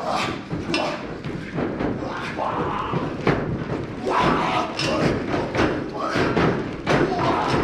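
Repeated thuds and slaps of wrestlers' bodies hitting the ring canvas and each other during a pro wrestling match, mixed with shouts.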